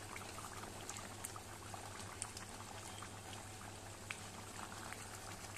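Fish curry gravy bubbling at a simmer in a steel pan, a dense scatter of small pops and blips over a steady low hum.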